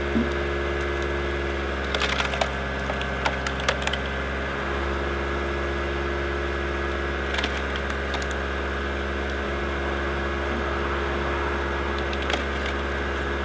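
Car engine running steadily, spinning a screw-cone log splitter bolted to its wheel hub, while wood cracks and splinters as the cone bores into a log: a cluster of sharp cracks about two to four seconds in, more at about seven and a half seconds, and one near the end.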